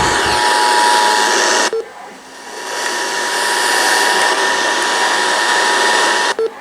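Loud static hiss from a radio receiver, with a faint steady two-note tone underneath, consistent with the Emergency Alert System attention signal. The hiss cuts out briefly a little under two seconds in and again near the end.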